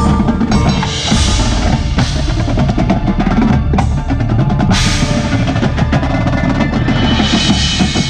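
Indoor percussion ensemble playing loud: a drumline of snare drums, tenor drums and bass drums, with bright cymbal crashes about a second in, around five seconds in, and near the end.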